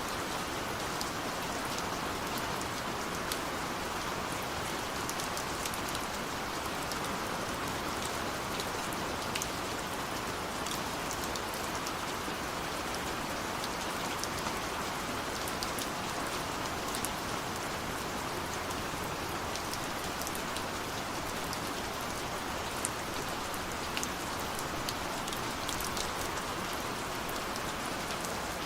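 Steady rain pattering on a window, an even hiss with many small drop ticks scattered through it.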